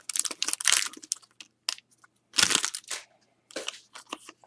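Crinkling and tearing of a trading card pack wrapper being opened by hand, in irregular bursts with short pauses.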